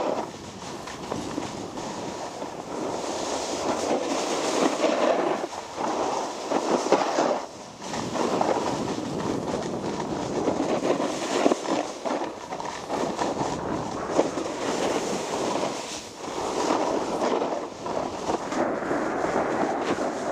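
Snowboard edges scraping and carving over groomed snow. The rasping swells and eases every few seconds as the board turns from edge to edge.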